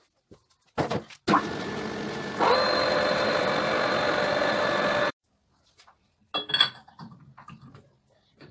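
Metal lathe running with a steel disc blank spinning in its three-jaw chuck while its face is turned. The noise starts abruptly, gets louder with a steady whine about a second later, and cuts off abruptly. A few short metallic knocks follow as the chuck and disc are handled.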